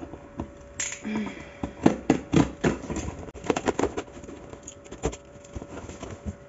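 Packing tape on a cardboard shipping box being cut with scissors and pulled, then the cardboard flaps opened: a quick string of sharp cracks, scrapes and knocks.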